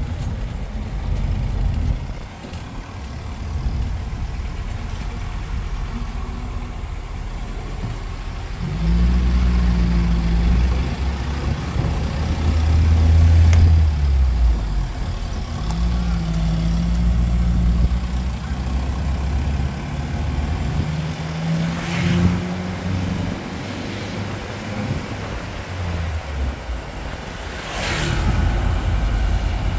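Road traffic heard during a drive: vehicle engines running, swelling and shifting in pitch as they speed up and slow down, loudest about a third of the way in. There are two sharp clicks, one about two-thirds of the way in and one near the end.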